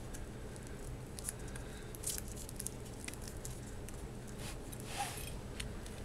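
Faint scattered clicks and rustles of plastic laptop parts being handled while a connector cable is threaded into place, over a low steady hum.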